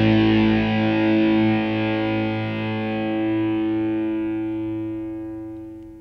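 Background music: a sustained guitar chord ringing out and fading away toward the end.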